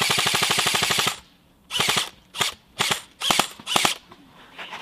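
Airsoft gun firing on full auto: one rapid burst of about a second, then five short bursts in quick succession.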